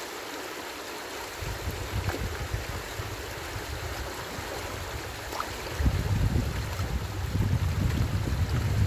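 Stream water running steadily, with gusts of wind buffeting the microphone in two stretches, from about a second and a half in and again from about six seconds in.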